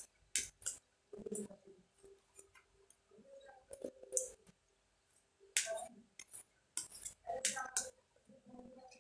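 Tarot cards being shuffled and drawn: a string of irregular sharp clicks and snaps of the card deck, with a faint murmured voice between them.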